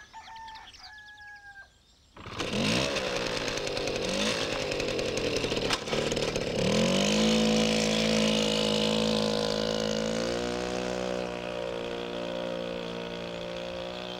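Birds chirping, then about two seconds in a small two-stroke moped engine starts running. Its pitch rises and falls for a few seconds, then it runs steadily and fades as the moped rides away.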